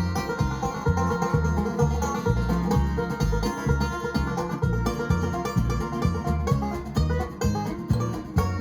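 Instrumental passage by a country string band: plucked strings over a steady, driving bass beat.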